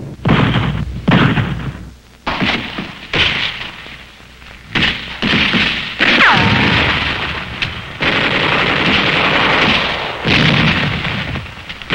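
Combat sounds: a run of gunshots and blasts in quick succession, with a falling whistle about six seconds in and a longer stretch of steady, dense noise near the end.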